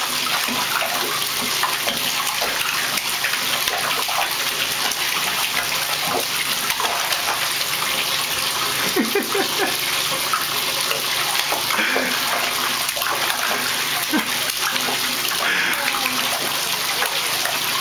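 Baby splashing and slapping the water with his hands in a plastic infant bathtub, irregular splashes over a steady hiss, with a few short baby babbles.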